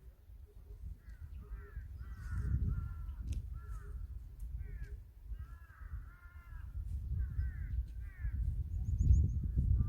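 Crows cawing, a run of short calls one after another, over wind rumbling on the microphone that grows stronger toward the end.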